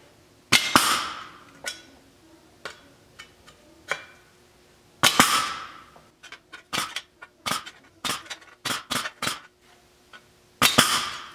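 Pneumatic punch tool snapping plug-weld holes through a sheet-steel patch panel: sharp snaps, the loudest three followed by a fading hiss, with a quick run of about eight snaps between six and nine and a half seconds in.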